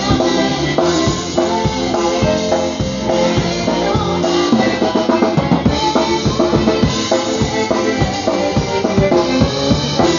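Live polka band playing dance music, a drum kit keeping a steady bass-drum and snare beat under held instrumental notes.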